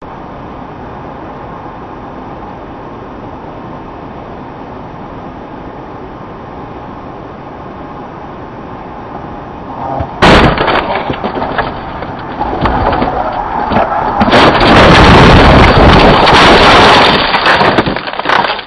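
Steady road and wind noise from a moving vehicle, then about ten seconds in a sudden, very loud vehicle crash: a hard impact followed by several seconds of loud crunching and clattering that overloads the recording.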